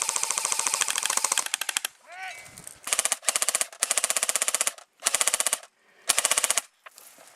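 Airsoft gun fire on full auto: a long rapid burst that thins out after about a second and a half, then four shorter bursts of under a second each with brief pauses between.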